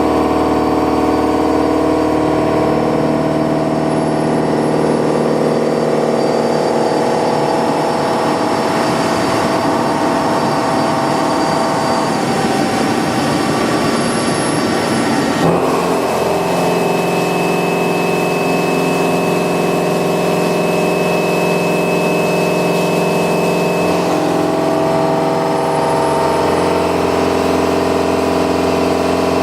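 Milling machine cutting metal with an indexable insert milling cutter: a loud, steady machining hum made of several tones. Partway through it turns rough and noisy for a few seconds, then settles into a different set of tones, with another change near the end.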